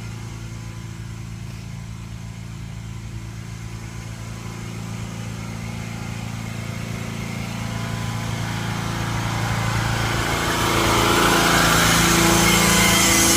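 Pressure-washing rig's engine running steadily, growing louder over the second half.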